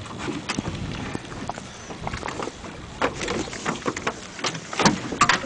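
Irregular knocks and clicks from a fishing rod and reel being handled against a boat, over a steady rushing noise. The sharpest knocks come about three and five seconds in.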